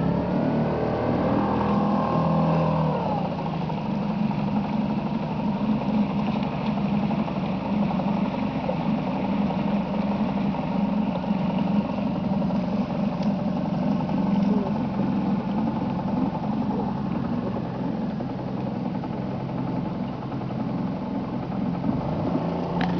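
Motorboat engine running steadily as the boat travels across the water.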